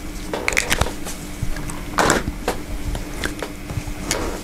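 Handling noise from small parts on a table: a few sharp clicks and taps as a felt-tip marker is put down and the small metal housing of a geared synchronous motor is picked up, the loudest tap about two seconds in.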